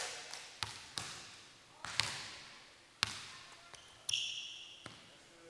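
A basketball bouncing on a hardwood gym floor: about six sharp bounces, each with a long echo. A short, high sneaker squeak on the court comes about four seconds in.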